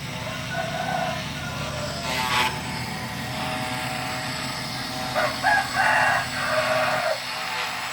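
A rooster crows once about five seconds in, over a steady low machine hum, with a short rasping sound about two seconds in.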